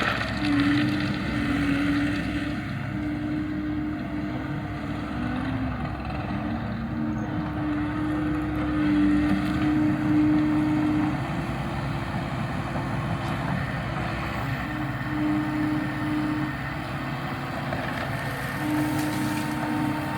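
Heavy earthmoving machinery (excavator and skid steer) running steadily, with a pitched whine that comes and goes in stretches of a second or two and steps between two pitches.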